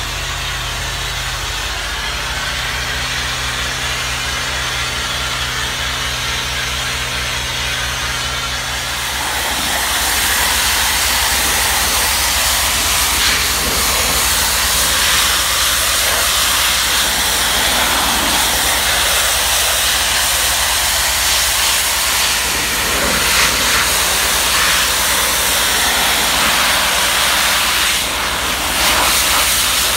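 Pressure washer spray hissing steadily over the low, even hum of the machine's engine. About nine seconds in, the spray is aimed at concrete steps close by and the hiss becomes louder and fuller as the water strikes the concrete.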